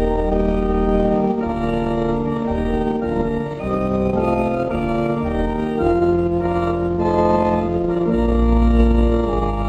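Church organ playing slow sustained chords that change about every second, over deep held bass notes.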